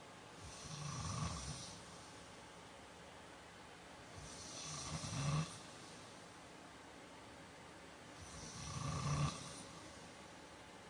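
A man snoring in his sleep: three snores about four seconds apart, each swelling over about a second and ending abruptly.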